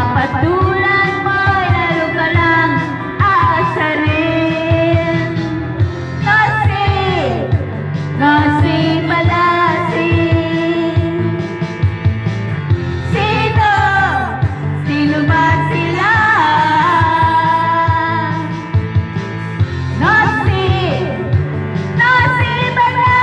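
Pop song with a singer over a steady beat, played loud for dancing.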